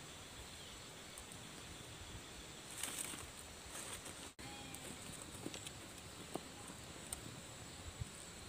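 Faint scattered clicks and light rustling of dry twigs being handled and laid over a small kindling flame.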